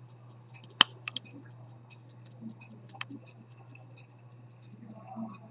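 Antique minute-repeater chronograph pocket watch ticking steadily, about five ticks a second: the movement is running. A sharp metallic click comes about a second in, with smaller clicks after it and near three seconds, as the hinged case covers are handled.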